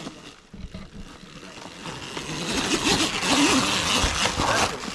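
Husqvarna youth electric dirt bike setting off up a loose dirt climb, its rear tyre scrabbling and spraying dirt, the noise building over the first few seconds. A few faint voice sounds come through.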